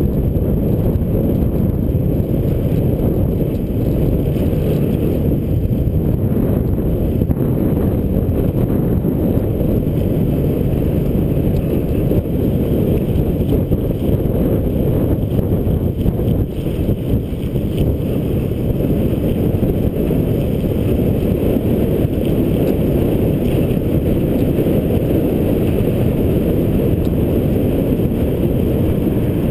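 Steady, loud wind rush buffeting a GoPro's microphone as a Brompton folding bike coasts fast downhill.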